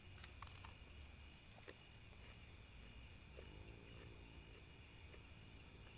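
Near silence at night: crickets chirring steadily and faintly, with a few soft clicks and a short faint tone about three and a half seconds in.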